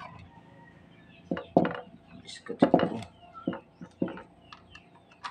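Sharp clicks and knocks of the plastic disc clamp and disc being handled in the open tray of a karaoke DVD player. There are about eight separate taps, bunched between about one and four seconds in.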